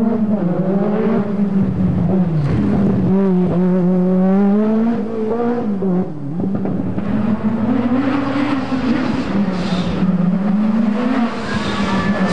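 Group B rally car engine running at high revs, its pitch repeatedly rising and falling as the car lifts off and accelerates again, with short drops about two and a half and six seconds in.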